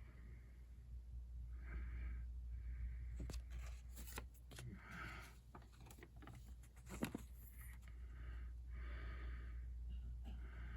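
Crisp new paper banknotes being handled, rustling and crinkling, with a run of sharp crackles in the middle, over a steady low hum.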